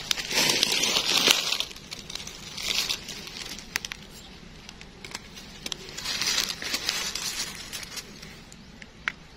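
Dry leaf litter and undergrowth rustling and crinkling as gloved hands pick and trim bolete mushrooms with a knife. It comes in several short bursts with a few light clicks in between.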